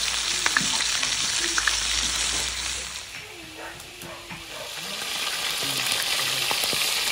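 Pork searing in hot oil in an aluminium pot: a steady frying sizzle as the meat browns. It dips quieter for a couple of seconds midway, then rises again.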